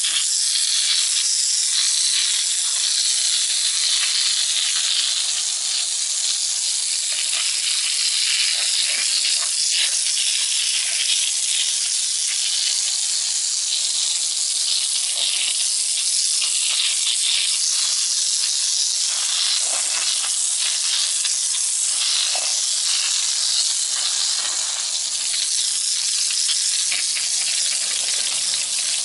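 Garden hose with a sweeper nozzle spraying a hard jet of water against a brick wall: a steady, high hiss of spray and splatter that holds at an even level.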